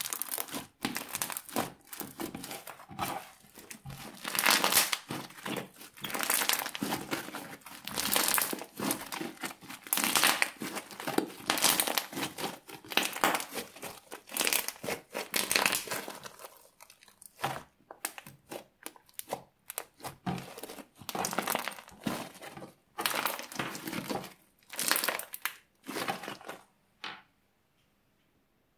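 Bubbly slime made with glue, foaming soap and shaving foam being squeezed, stretched and folded by hand. The air bubbles trapped in it crackle and pop in repeated crinkly bursts about a second apart.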